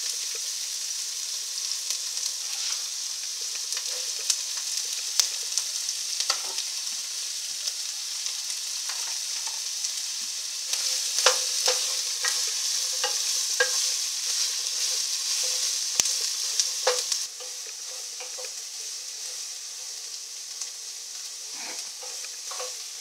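Diced onion and bell pepper sizzling in olive oil in a square pan, with a wooden spoon stirring and scraping, giving scattered clicks and knocks against the pan. The sizzle gets quieter about three-quarters of the way through.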